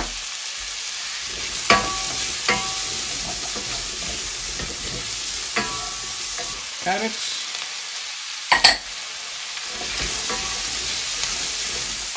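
Diced onions and garlic sizzling in olive oil in a stainless steel saucepan, stirred with a wooden spoon: a steady hiss with several sharp knocks against the pan that ring briefly, the loudest about two-thirds of the way through.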